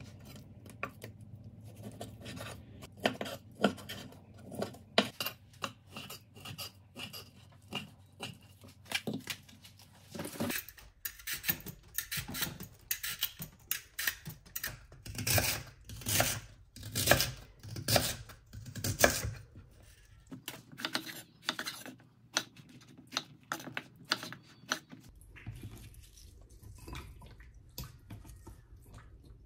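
Kitchen food-prep sounds: a run of short knocks and scrapes from a knife and metal utensils, first on a wooden cutting board, then over a stainless steel sink while lotus root is peeled. The strokes come quicker and louder from about ten to twenty seconds in.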